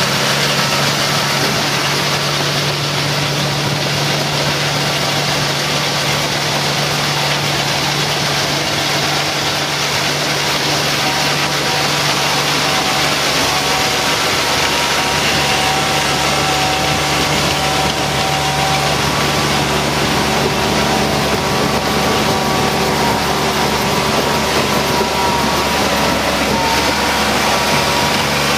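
Feucht OB Future II fallen-fruit harvester running steadily, its engine humming under the noise of its rotating pickup brushes and rollers sweeping apples off the grass. Partway through, the engine's low note shifts deeper.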